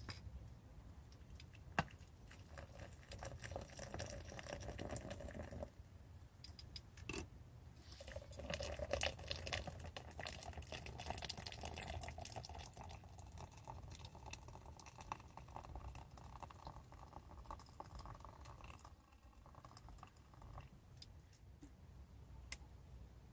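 Hot water poured from a stainless steel kettle into a French press in two pours with a short break about six seconds in, the pour rising in pitch as the press fills. A few light clicks, one near the end as the lid and plunger are set on.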